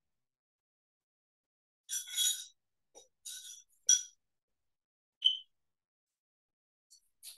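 Light, sharp clicks and clinks with a slight ring, in small irregular clusters: one group about two seconds in, another around three to four seconds, a single click a little after five seconds, and more starting near the end.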